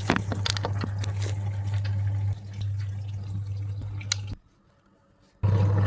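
Samsung top-load washing machine filling, water gushing into the tub with a steady low hum. The flow cuts off suddenly about four and a half seconds in and starts again a second later.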